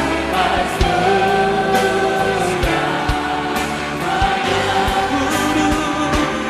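Live worship music: a male lead singer holds long sung notes with female backing vocals over a full band, with drum hits throughout.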